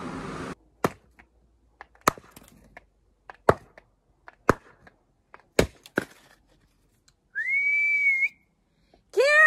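About six sharp, separate knocks of a hatchet striking and splitting kindling on a chopping block. These are followed by a high, steady whistle and, near the end, a louder whistled call that rises and falls.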